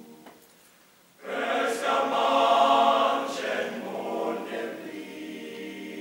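Unaccompanied teenage boys' choir of about seventeen voices singing. A held chord dies away into a brief near-silent rest, then about a second in the full choir comes in loudly on a chord and sings on, gradually getting softer.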